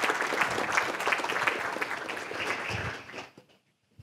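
Audience applauding, dense clapping that fades out about three seconds in.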